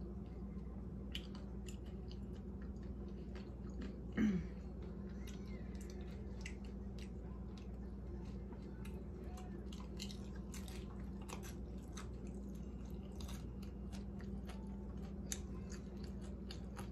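A person chewing a chicken taco close to the microphone, with many small wet mouth clicks and smacks throughout. About four seconds in, a brief hum falls in pitch.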